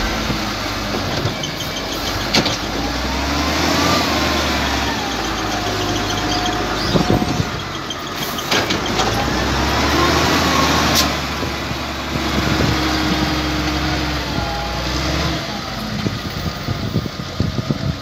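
XCMG LW300KN wheel loader's diesel engine running and revving up and down as it works its bucket, with a whine that rises and falls in pitch a few times. Occasional sharp knocks sound over it.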